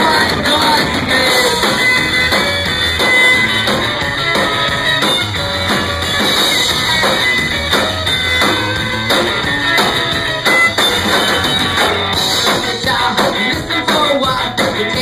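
Ska-punk band playing live, loud: drum kit on a steady beat, guitars and vocals.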